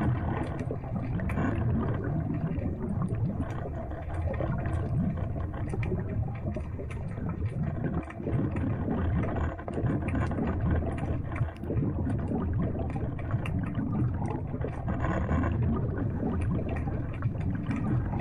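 Muffled underwater sound as heard through a submerged camera housing: a steady low rush of moving water with many faint scattered clicks.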